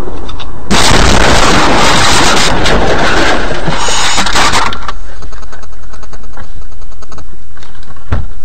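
Car crash picked up by the dash camera: a sudden, very loud crash about a second in, followed by about four seconds of dense crunching and scraping noise. It then drops to a quieter low hum with scattered clicks and cuts off abruptly near the end.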